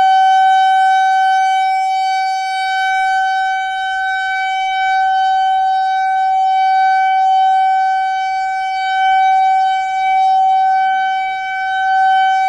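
Whelen WPS-4004 electronic outdoor warning siren sounding its steady alert tone: one held pitch with strong overtones, very loud, swelling and fading in loudness every few seconds.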